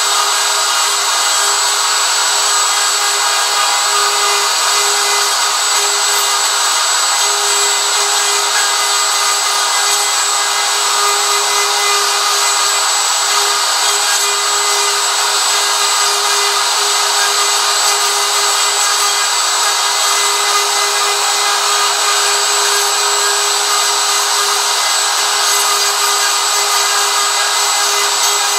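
DeWalt DW618 router with a 90-degree bit cutting a textured background into a wooden sign: a steady motor whine over the noise of the bit chewing through wood.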